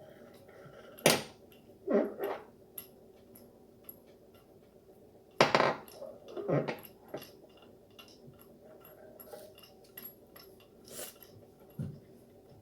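Metal parts of a button-making machine clinking and knocking as it is assembled by hand, in scattered irregular strikes; the two loudest come about a second in and about five and a half seconds in.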